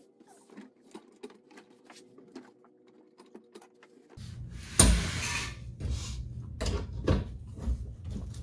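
Light clicks and taps of tools and fittings being handled under a car. About four seconds in, a low hum starts, with louder knocks and rattles over it.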